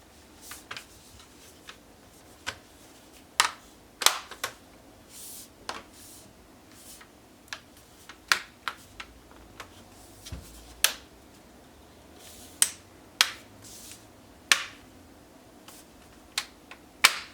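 Bottom cover of a Samsung Galaxy Book NP9500Q laptop being pressed back on, its clips clicking into place in a string of sharp, irregularly spaced clicks.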